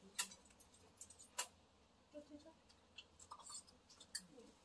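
Scattered light clinks and taps of spoons against plates and bowls during a meal, a few sharp clicks among softer ones.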